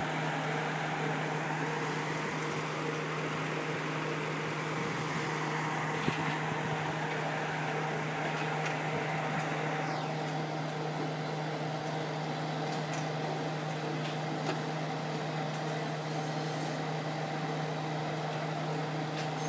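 KiHa 40 diesel railcar idling at the platform: a steady, unchanging engine hum with a low drone. A brief knock about six seconds in.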